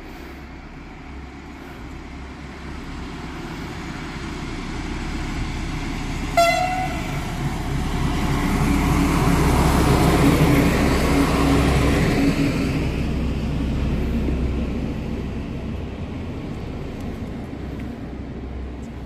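Diesel locomotive, with a second locomotive coupled behind, passing through: engine rumble and wheel noise build to a peak about ten seconds in and then fade. A short horn toot sounds about six seconds in.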